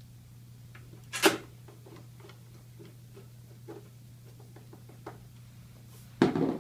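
Light clicks and taps of small parts and tools being handled during reassembly, with a louder knock about a second in and a clatter of knocks near the end, over a steady low hum.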